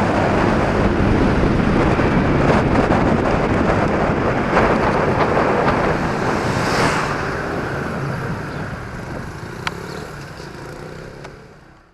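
Wind rushing over the action camera's microphone, with the Honda PCX 125 scooter's single-cylinder four-stroke engine running underneath. The sound dies away over the last several seconds and cuts to silence at the end.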